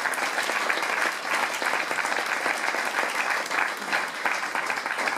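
Theatre audience applauding: many hands clapping at a steady level.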